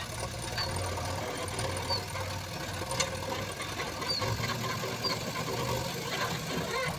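JCB 3DX backhoe loader's diesel engine running steadily as its front loader bucket tips soil into a tractor trolley. A few short high chirps and a sharp click about three seconds in.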